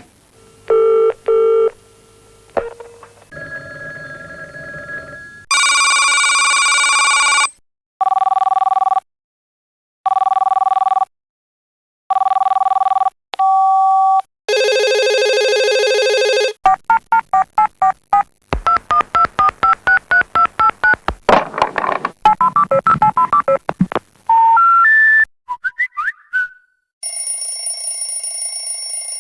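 A run of different telephone signals one after another: short beeps, three one-second ring tones about two seconds apart, a fast series of short tones stepping up and down in pitch, and a bright bell-like ring near the end.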